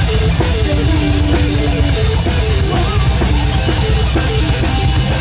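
A live metal band playing loud through the PA: electric guitars and bass over a driving drum kit, with a melody line stepping from note to note.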